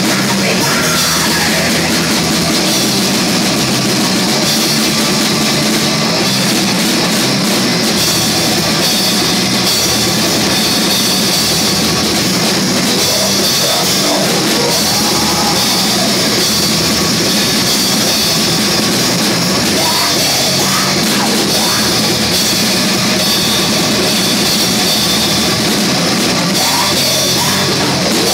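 Live black metal band playing loud and without a break: drum kit under electric guitars and bass.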